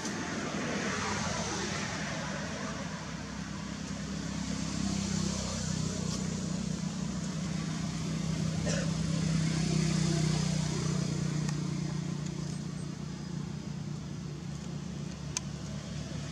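A motor vehicle's engine passing by: a low hum that swells to its loudest about ten seconds in and then eases off, with a short sharp click near the end.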